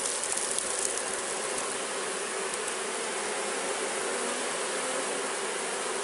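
Honeybees buzzing steadily at a hive entrance, many of them fanning their wings. It is a sign that a newly hived swarm looks to be taking to the box.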